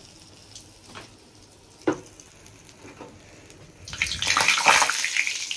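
Egg fritters frying in hot oil in a steel kadai, with a few light clicks at first. About four seconds in, a spatula works the fritters and a loud burst of sizzling starts.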